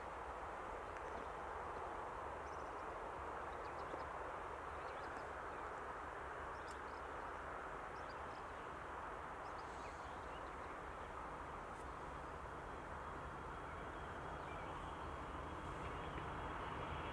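Quiet countryside ambience, a steady faint hiss with a few light bird chirps. Near the end the low engine sound of an approaching diesel locomotive, SNCF BB 67603, starts to grow louder.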